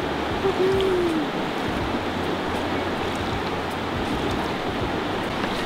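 River water rushing steadily over shallow rapids, an even, unbroken hiss.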